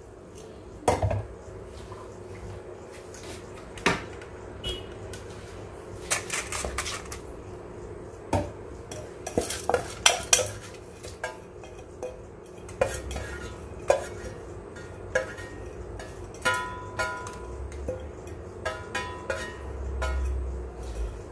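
Stainless-steel cup knocking and scraping against a stainless-steel mesh strainer while soaked rice is pressed to drain it: irregular metallic clinks and taps, a few of them ringing briefly.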